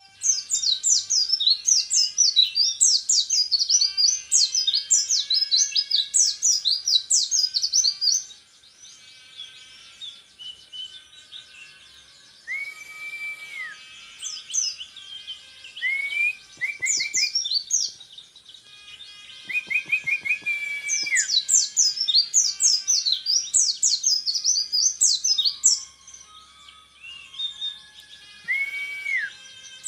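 Orange-headed thrush (peleci) singing: loud bursts of rapid, fast-changing high notes, the rapid-fire 'tembakan' phrasing prized in songbird contests, for about eight seconds at the start and again from about twenty seconds in. In between come softer twittering and a few short held whistles.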